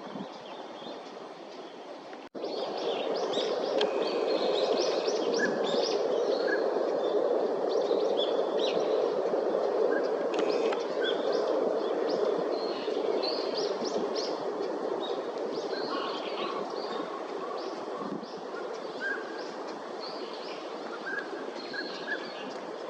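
A flock of northern pintails calling: many short, high whistled and chirping notes overlapping one another, over a steady rushing background noise. The sound breaks off briefly about two seconds in, then picks up louder.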